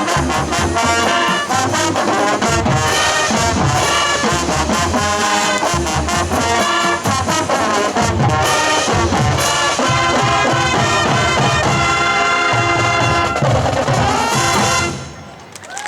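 Marching band playing brass-led music over drums and a pulsing low bass line. The music cuts off about a second before the end.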